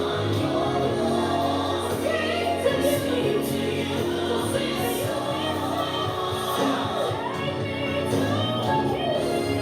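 Gospel choir singing over instrumental backing music, with sustained chords and bending sung lines.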